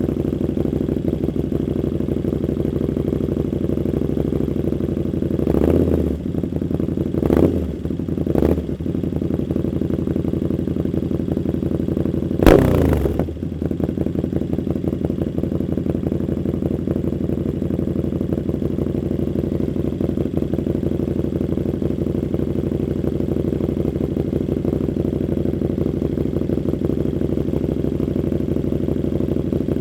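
KTM Super Duke 1290 R's V-twin idling through an Austin Racing 150 mm exhaust, blipped three times in quick succession about six to nine seconds in and once more, louder and with a sharp crack, around twelve seconds in, then settling back to a steady idle.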